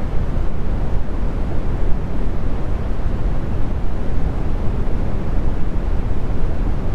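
Brown noise: a steady, even low rumble of random noise, heaviest in the deep lows and thinning out toward the highs, with no changes or events.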